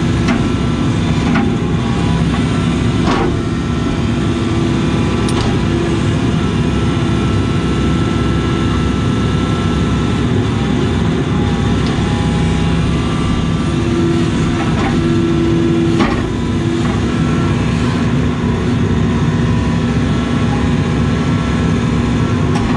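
Case CX80 excavator running steadily, heard from inside the cab, its diesel engine and hydraulic whine rising and falling in pitch as the boom and bucket move. A few sharp knocks sound through it.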